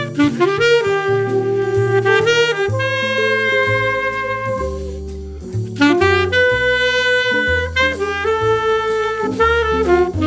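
A saxophone plays a smooth jazz melody in long held notes over a jazz backing recording, with a bass line moving underneath.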